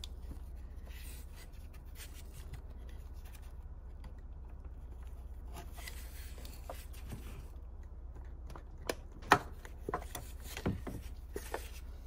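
Scraping and rubbing of a long pick tool against the plastic ignition coil pack and its connector on a BMW X3 E83's inline-six engine while the engine is off, then a few sharp clicks and knocks in the last few seconds as the coil is prised loose from its well.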